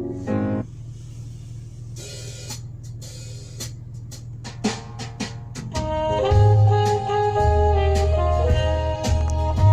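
Music: a song ends, a sparse passage of light percussion taps follows, and about six seconds in a band with deep bass and held melodic notes comes in.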